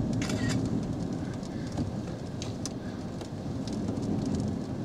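Rain hitting the roof and windshield of a car, heard from inside the car: a steady rushing noise with many scattered sharp drop impacts over a low rumble.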